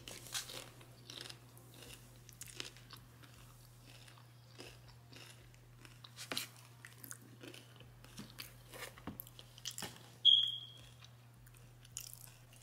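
Someone crunching and chewing nachos (tortilla chips), in short, irregular crunches. About ten seconds in, a brief high-pitched beep sounds, the loudest thing heard.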